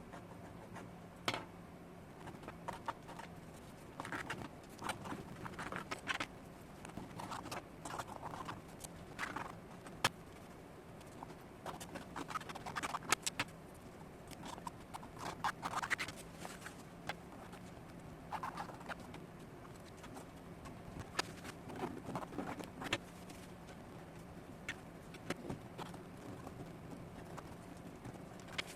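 Hands working on a wallet at close range: irregular small taps, clicks and short scratching or rubbing noises, over a faint steady hum.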